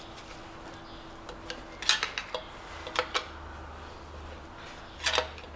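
Sharp metal clinks and knocks from a hand tool working against the torque converter to push it back off the engine's flywheel. A handful of separate strikes, the loudest about two seconds in and again near the end.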